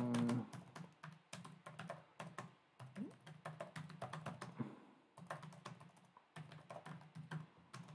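Fast typing on a laptop keyboard: a rapid, uneven run of soft key clicks with a couple of brief pauses, over a faint low hum.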